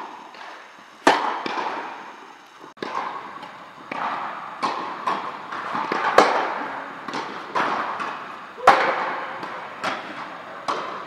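Tennis balls struck by rackets and bouncing on a hard court, each hit echoing around a large indoor tennis hall. The loudest strikes come about a second in, about six seconds in and near nine seconds in, with fainter hits in between.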